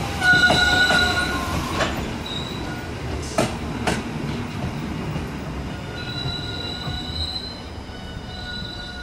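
JR West 221 series electric train moving away, its wheels squealing in several steady high tones over a rumble, with a few sharp clacks from the rails. The sound fades as the last car leaves.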